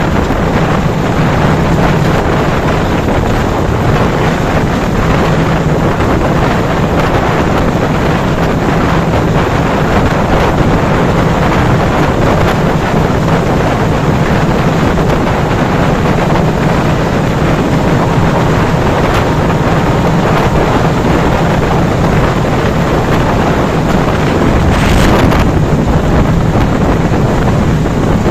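Jahanabad Express train running at speed: a steady, loud rolling rumble with a low hum, and wind buffeting the microphone.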